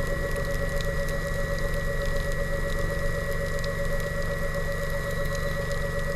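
Suex diver propulsion vehicle's electric motor running steadily underwater: a pulsing mid-pitched whine and a higher steady tone over a dense low rumble.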